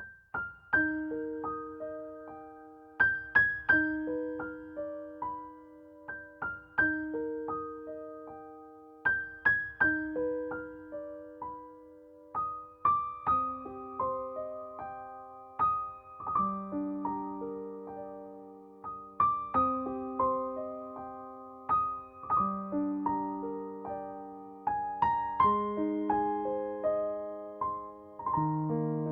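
Slow, gentle solo piano music: single notes and broken chords struck one after another, each left to ring out and fade.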